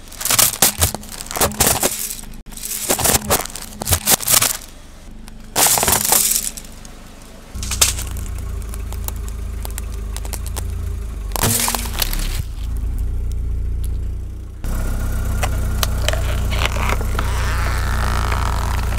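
A car tyre crushing a bundle of coloured pencils: dense runs of snapping and cracking for the first five seconds or so. Then, over a steady low engine hum, a plastic toy cracks once under the tyre, and a squeeze bottle of liquid bursts and squirts with scattered crackling near the end.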